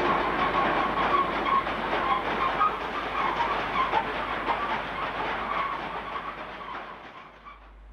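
Freight train of hopper wagons rolling past close by: steady rumble and rattle of wheels on the track. It fades away over the last few seconds as the end of the train goes by.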